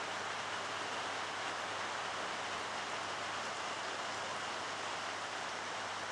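Heavy downpour falling steadily, an even, unbroken wash of rain noise.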